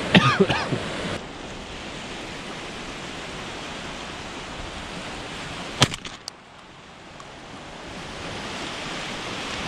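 Small waves lapping on a pebble beach, with wind on the microphone. A single sharp click cuts through about six seconds in.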